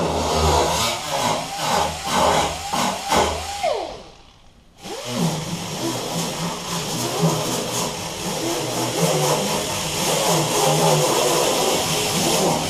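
Small air-powered grinder with an abrasive disc, triggered in about five short bursts that spin up and wind down in pitch, then after a brief stop about four seconds in, running steadily under changing load as it grinds on the car's firewall.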